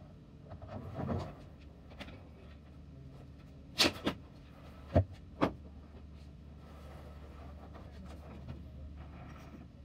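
Four sharp knocks between about four and five and a half seconds in, with softer handling noise earlier, over a steady low hum.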